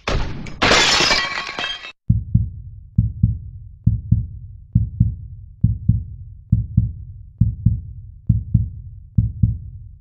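A crash like shattering glass with a noisy, ringing tail lasting about two seconds, followed by a heartbeat sound effect: low double thumps, about one pair a second.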